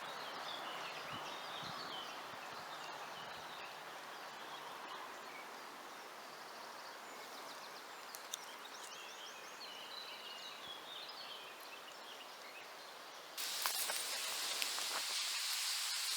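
Outdoor ambience with small birds chirping faintly over a steady background hiss. About 13 seconds in it cuts abruptly to a louder, brighter steady hiss with a few sharp clicks.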